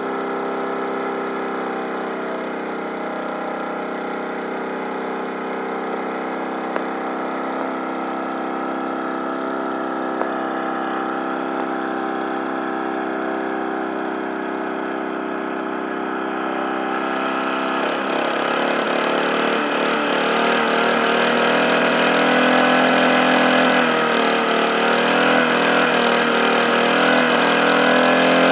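Lawn mower engine running at a steady speed. About eighteen seconds in, it gets louder and rougher, its pitch wavering unevenly.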